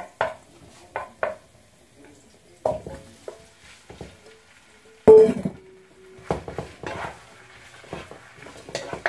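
Kitchen dishes and a pan being handled: scattered knocks and clatters, the loudest about five seconds in, followed by a brief metallic ring.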